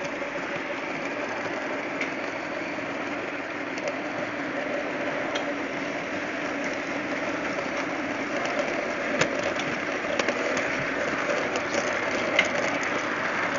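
TT-scale model train running, heard from a camera riding on one of its wagons: a steady whirring of the small electric motor and the rattle of the wheels on the track. A few sharp clicks come in the second half.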